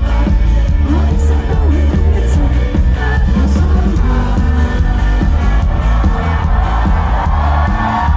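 Live pop band performance: band playing steadily with a voice singing, and crowd cheers mixed in.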